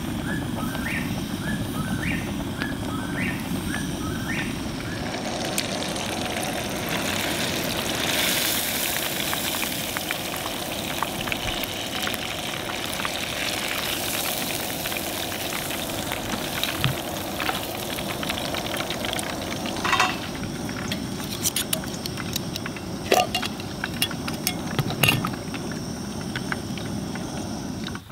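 Catfish frying in hot oil in a pot on a propane camp burner, a steady sizzle that grows brighter and hissier from about five seconds in. Metal tongs click against the pot several times in the second half as pieces are lifted out. During the first few seconds a short rising chirp repeats about twice a second.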